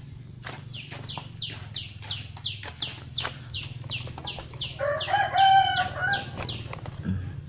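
A rooster crows once, about five seconds in, over another bird's rapid series of short, high, downward-sliding chirps, about three a second.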